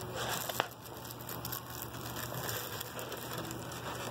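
Plastic wrapping crinkling and rustling as wrapped sculpture parts are handled in a styrofoam packing tray, with many small clicks and a sharper tap about half a second in.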